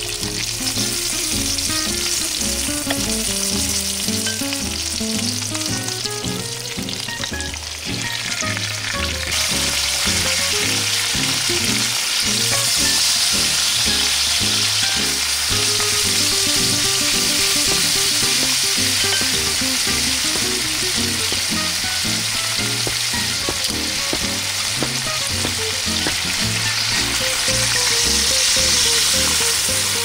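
Whole yellowback sea bream and sliced garlic sizzling in hot oil in a pot, with a spatula stirring and scraping. The sizzle turns louder and hissier about nine seconds in.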